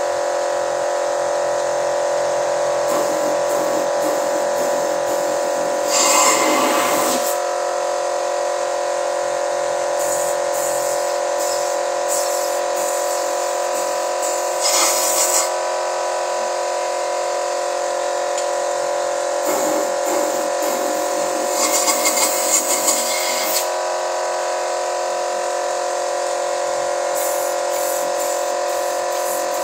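Petrol car engine running during a carbon-cleaning treatment, giving a steady buzzing hum, with brief louder hissing surges about 6, 15 and 22 seconds in.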